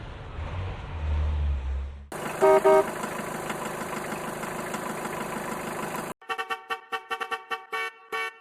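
Truck sound effects: a low engine rumble that cuts off abruptly, then a steady engine noise with two short horn toots, then a fast run of electronic beeps, about five a second, near the end.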